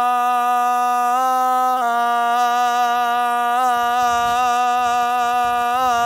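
A man's voice chanting the sela, the Arabic salawat before prayer, drawn out on one long held melismatic note. The pitch steps slightly about a second in and again just before two seconds, with short wavering ornaments later on.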